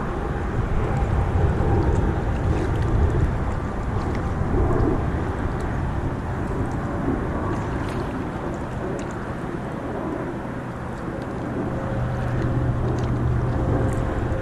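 Wind buffeting the microphone over water sounds from a kayak on a lake, with a few faint clicks.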